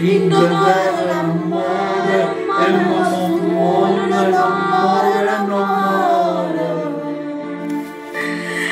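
A woman and a man singing a slow sacred song together into handheld karaoke microphones, long drawn-out sung notes over a steady low tone.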